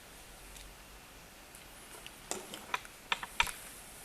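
A quiet first half, then about half a dozen sharp plastic clicks in quick succession from handling and posing a plastic Transformers figure, typical of its ratcheted joints and hinged parts being moved.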